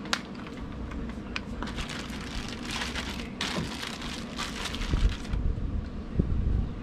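Clear plastic bag crinkling as a spray nozzle is pulled out of it, after a sharp click at the very start. Wind buffets the microphone in the last couple of seconds.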